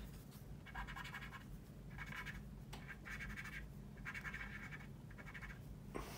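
Cotton swab rubbed in short strokes over the painted surface of a plastic scale model, wiping off oil wash: about five faint scratchy strokes, roughly one a second.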